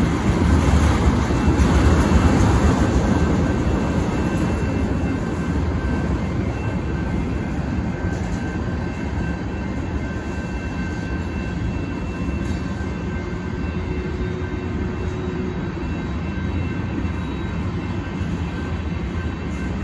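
Freight train tank cars rolling through a grade crossing, a steady rumble of wheels on rail that is loudest in the first few seconds, with the crossing's electronic bells ringing over it.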